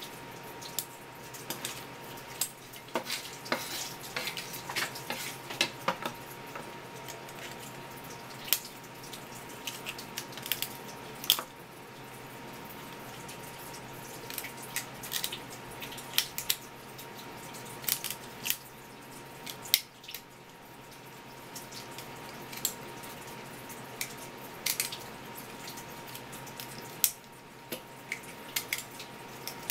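Kitchen shears snipping through the shells of swimming-crab (gazami) legs and claws, in irregular sharp clicks and cracks, over a thin stream of tap water running steadily onto a wooden cutting board.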